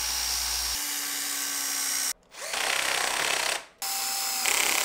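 Cordless drill-driver driving screws through a metal shelf rail into wall plugs in a masonry wall. It runs in three stretches, stopping briefly about two seconds in and again just before four seconds, the second stretch starting with a rising whine as the motor spins up.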